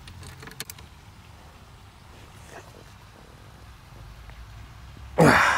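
Faint clicks of a hex-bit socket tool tightening a pedal onto the crank arm. Near the end comes a short, loud vocal sound that falls in pitch.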